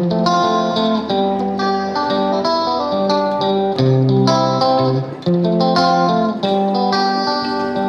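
Background music: a plucked guitar playing a melody of short notes in an even rhythm.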